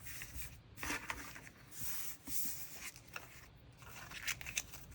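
Sticker sheets and paper packaging being handled: irregular rustling and crinkling with a few small clicks.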